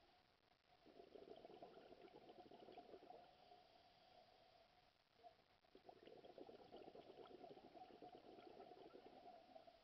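Faint bubbling of a scuba diver's exhaled air from the regulator, underwater. It comes in two long bursts, the first starting about a second in and the second from about six seconds in, with a quieter pause between them.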